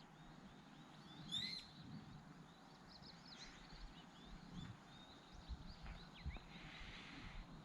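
Small birds chirping faintly outdoors, a string of short quick high calls with a louder one about a second and a half in, over faint low thuds.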